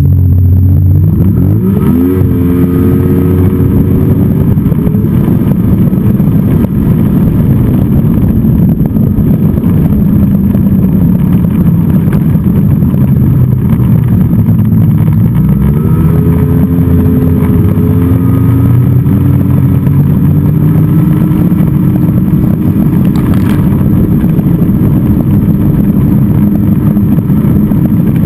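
Snowmobile engine running at speed, heard up close from the sled itself. Its pitch climbs twice as it accelerates, in the first two seconds and again about halfway through, then holds steady.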